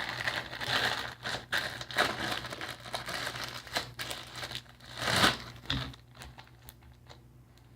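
Plastic bag crinkling and crackling as a slime is handled and worked out of it, with a louder crunch a little after five seconds before it goes quieter.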